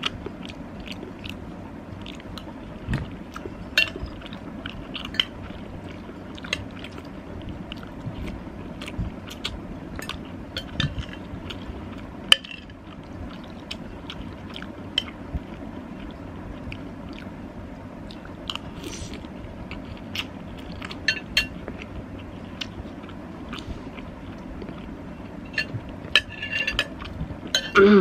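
A person eating pasta soup with egg close to the microphone: chewing, with many short scattered clicks, over a steady low hiss.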